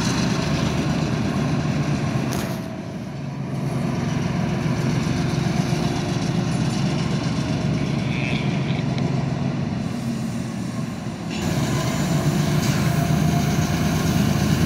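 Diesel switcher locomotive engine running with a steady low hum as the locomotive moves slowly, growing louder and fuller about eleven seconds in.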